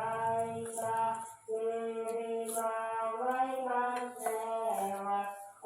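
Chanting from a nearby mosque's loudspeaker: a single voice holding long, drawn-out melodic notes, with short breaks for breath.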